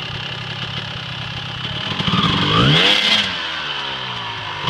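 Off-road vehicle engine idling, then revved once about two seconds in: the pitch climbs, holds briefly and falls back to idle.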